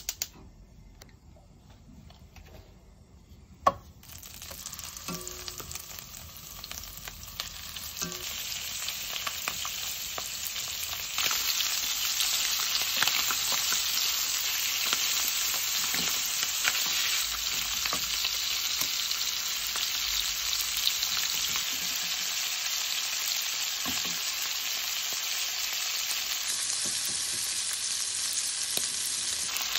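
Chicken thighs sizzling as they fry in oil in a nonstick pan, a dense crackle that builds over several seconds, gets louder about eleven seconds in, then holds steady. One sharp click comes near the start, before the frying begins.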